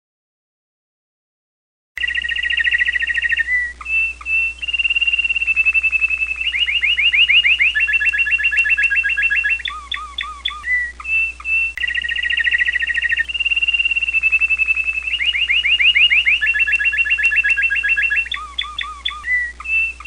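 American Singer canary singing a long, loud song of fast trills, rolling sweeps and short low repeated notes, starting about two seconds in. The same run of phrases comes twice.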